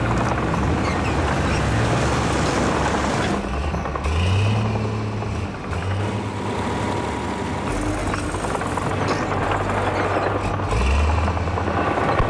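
Heavy diesel earthmoving machines running hard as a stuck bulldozer and an excavator try to pull it free. The engines rev up under load about four seconds in and again near the end.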